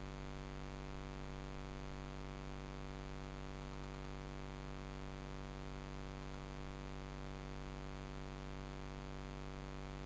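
Steady electrical hum with a stack of buzzy overtones and a faint hiss, unchanging throughout, with no shots or other events.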